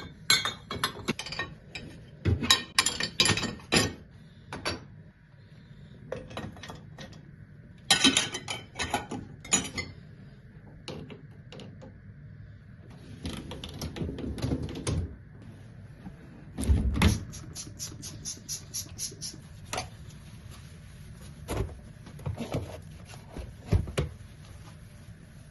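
Dishes and cutlery clinking and clattering as they are handled, in flurries of sharp clicks and knocks with short pauses between.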